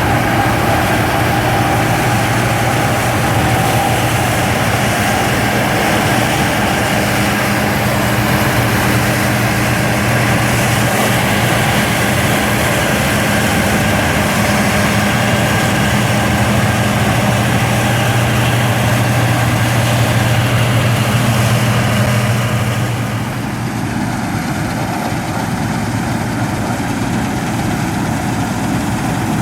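Claas Mercator combine harvester running steadily as it harvests wheat, with a deep, even engine hum under the clatter of the machine. About 23 seconds in, the hum fades and the sound gets a little quieter.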